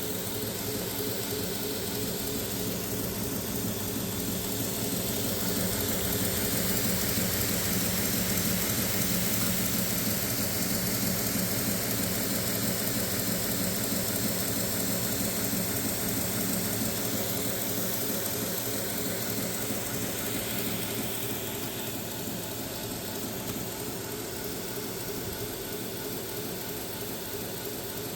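2x72 belt grinder running with a 60-grit belt: a steady motor hum with belt hiss over it, growing a little louder a few seconds in and easing slowly toward the end.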